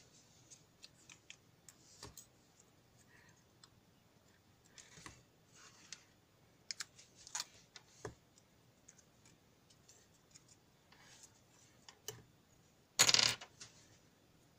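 Hands working at a bench: small scattered clicks and taps of metal crocodile clips being unclipped and set down, with light rustling, and a louder ripping rustle near the end as sticky tape is peeled off the board.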